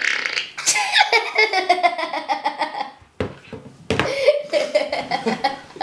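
Two boys laughing hard in two long fits broken by a brief pause, their laughter breaking into quick rapid pulses.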